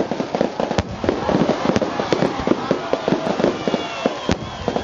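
Firecrackers going off in a rapid, continuous barrage of cracks and bangs, with a couple of louder single bangs, one about a second in and one near the end.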